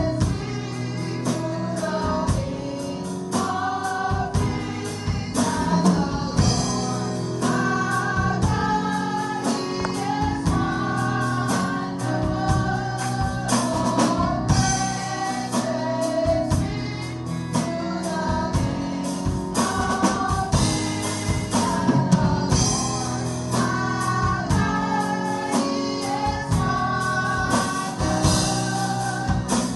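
Women's gospel choir singing in church, voices amplified through microphones, with instrumental backing and a steady percussive beat.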